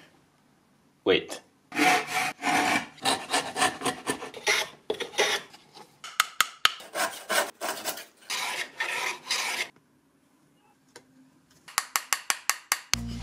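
Small hand plane shaving beech wood in a series of short, rasping strokes. A quick run of sharp clicks comes near the end.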